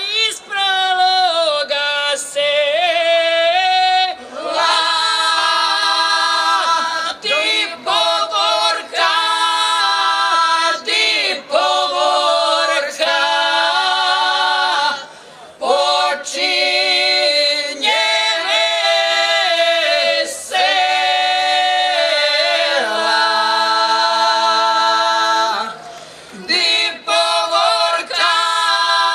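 A group of women singing a cappella in long phrases of held notes, with short breaks for breath between phrases.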